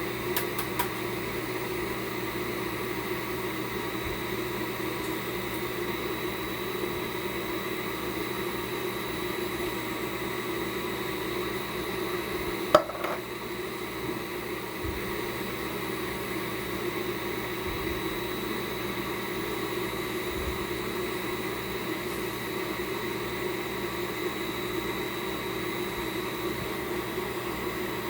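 Steady hum of a running kitchen appliance fan, with a thin constant high tone over it. A single sharp click sounds about halfway through.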